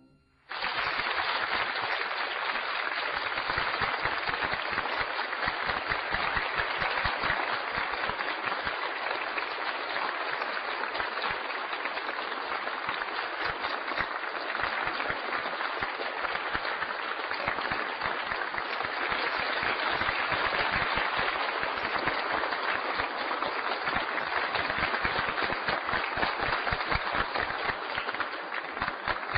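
Audience applauding: a dense, steady clatter of many hands clapping that starts suddenly about half a second in.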